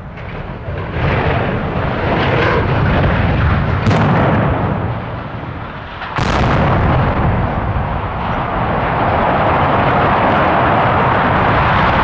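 Explosive demolition charges going off as a steel chimney and SCR structure are felled: a continuous rumble of blasts with two sharp cracks, about four and six seconds in, followed by the steady rumble of the collapse.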